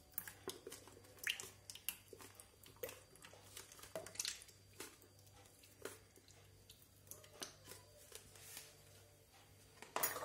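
Whipping cream poured from a carton into the stainless steel bowl of a Monsieur Cuisine food processor, faint scattered drips and small clicks as the carton is emptied, with one sharper click near the end.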